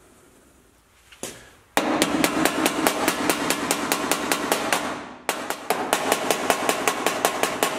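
Hammer beating a steel outer-sill repair panel into shape on the car body, a fast run of ringing metal blows about five a second. It starts with a single blow about a second in, and the run pauses briefly about two-thirds of the way through.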